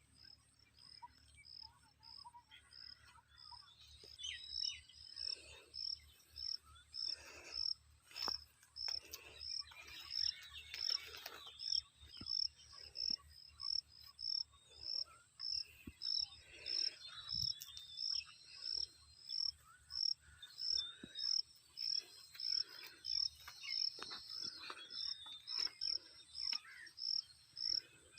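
Chorus of insects and birds: a high chirp repeating evenly about twice a second over a steady high drone, with scattered bird chirps throughout.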